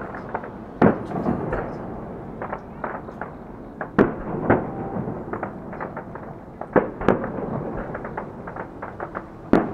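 Aerial firework shells bursting at a distance: a string of sharp bangs with smaller crackles and rumbles between them, the loudest about a second in, at four seconds, around seven seconds and near the end.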